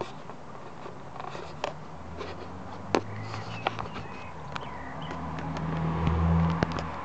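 Low hum of a motor vehicle engine, building from about two seconds in to its loudest near the end, then easing off. Scattered light clicks and rustles run over it.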